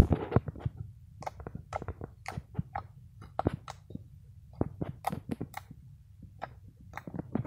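Purple glitter slime being poked and squished by fingers, making an irregular run of sticky clicks and small pops.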